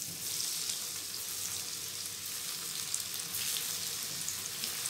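Coated karela (bitter gourd) slices frying in a wok of hot oil as a fresh batch is dropped in: a steady sizzle with scattered crackles.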